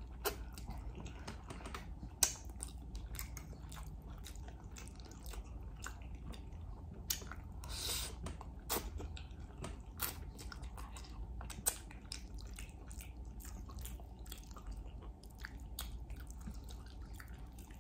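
Close-miked wet chewing of cheesy baked spaghetti, broken by many short sharp clicks.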